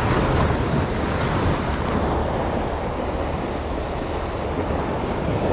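Sea waves washing and breaking against the shore, a steady rushing surf, with wind buffeting the microphone.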